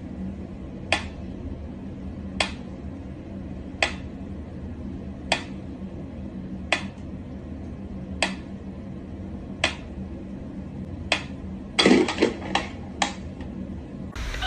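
Pyramid-shaped mechanical metronome ticking slowly and evenly, one sharp tick about every second and a half. Near the end a quick cluster of louder clicks and knocks breaks in.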